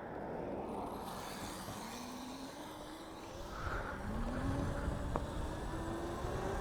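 Electric motor of a Razor modded with a 5 kW Hotpaxx kit, whining and rising in pitch as it speeds up, twice over. A low rumble comes in about halfway, and there is a single sharp click a little later.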